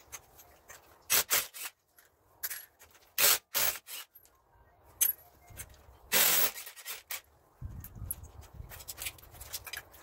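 Cordless impact wrench run in several short bursts on the car's wheel lug nuts, the loudest burst about six seconds in.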